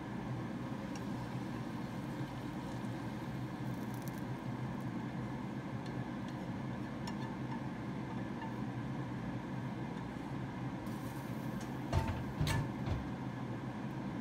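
Steady low mechanical hum, with light clinks and scrapes of chopsticks against a wok as stir-fried gourd is scraped into a ceramic bowl, and two louder knocks about twelve seconds in.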